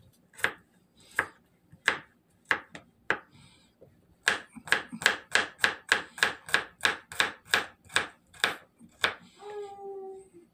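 Kitchen knife chopping garlic on a plastic cutting board: a few spaced strokes at first, then a quicker, even run of about three chops a second.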